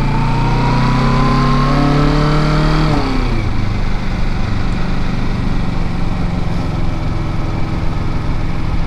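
Kawasaki Ninja 650's parallel-twin engine pulling under light throttle, its pitch rising slowly for about three seconds. It then falls away as the throttle closes and the bike coasts, leaving a lower, rougher engine note under a steady rush of road noise.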